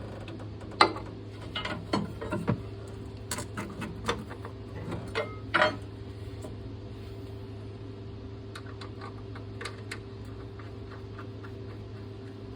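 Hand tools clicking and knocking against metal in irregular strokes as bolts are fitted to hold the skid steer's hydraulic pump against the engine, busiest in the first half and fainter later, over a steady low hum.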